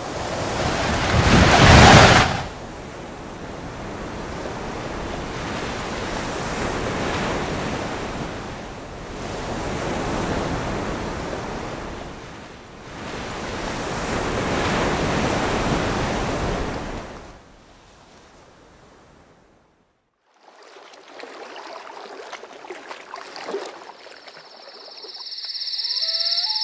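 Rushing sea and wind rising and falling in slow swells, loudest about two seconds in, then fading away. After a short near-silence, a faint outdoor night ambience follows, with a few brief chirps near the end.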